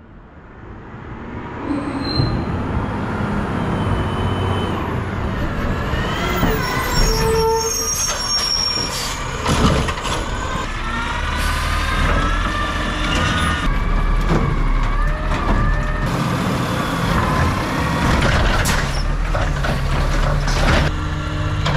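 Scorpion automated side-loader garbage truck working at the curb: its diesel engine running and revving, a hydraulic whine rising and falling in pitch as the arm works, with clanks and hisses of air. The sound fades in over the first two seconds.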